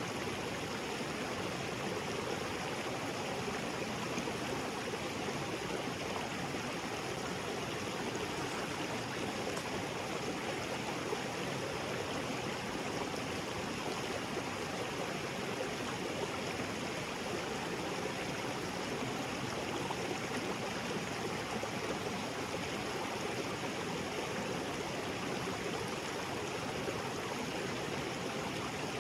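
Small waterfall spilling into a rocky jungle creek: steady rushing and splashing of falling and flowing water, unchanging throughout.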